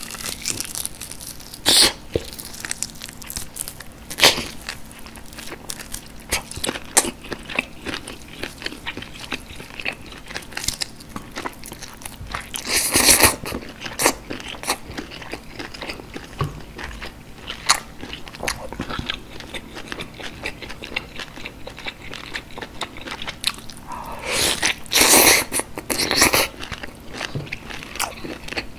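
Close-miked eating: biting and tearing tender braised beef short rib meat off the bone and chewing it wetly, many small sharp clicks and smacks. Louder stretches come about thirteen seconds in and again around twenty-five seconds in.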